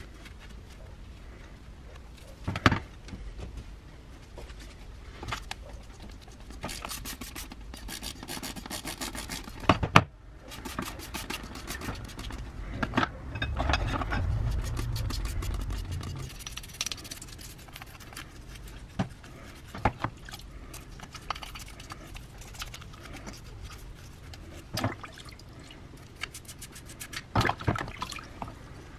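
Hand-cleaning a metal angle-grinder gear housing and its parts: cloth and brush rubbing and scrubbing in quick strokes, with a few sharp knocks of metal parts against a plastic tub and some sloshing of liquid.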